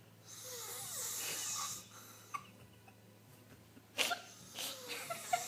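Snoring: one long, hissing breath in the first two seconds, then a few short, sharp breath sounds with a whistling pitch from about four seconds in.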